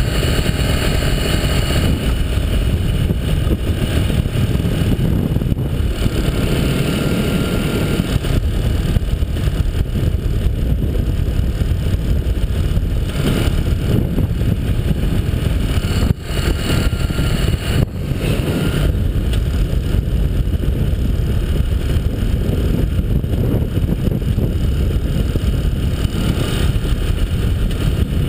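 Paramotor engine running steadily in flight, mixed with wind rushing over the microphone. The level dips briefly about sixteen seconds in and recovers about two seconds later.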